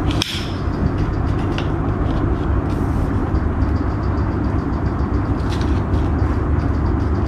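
A steady low rumble, with a few light clicks and knocks as aluminium tent poles are pushed into a plastic frame connector.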